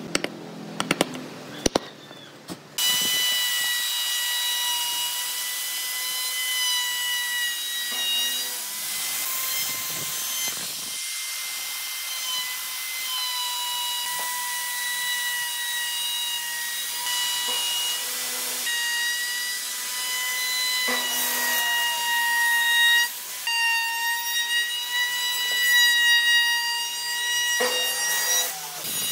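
A few sharp taps of a chisel cutting into a wooden board, then an electric wood router starts and runs along the edge of a wooden tabletop: a loud high whine whose pitch dips now and then as the bit takes the cut.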